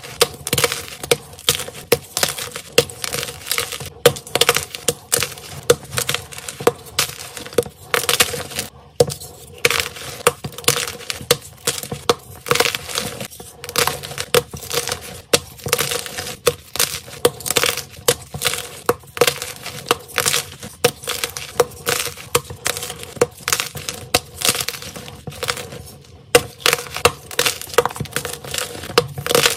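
Crunchy white gym chalk blocks being crushed and snapped apart by hand: a dense, continuous run of crisp crunches and cracks as the chalk crumbles to powder in the fingers.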